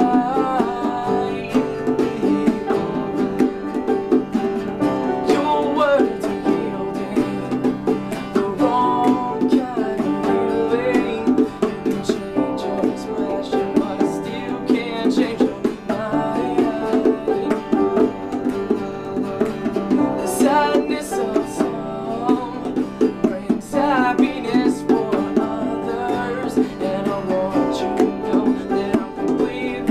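Acoustic band playing a song: plucked acoustic string instruments throughout, with singing at a few points.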